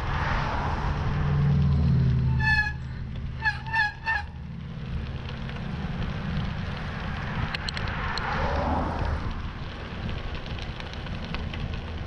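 Wind rushing over a bike-mounted camera's microphone while riding past a line of stopped traffic, with low engine rumble. About two and a half seconds in come four short honks: one, then three quick ones.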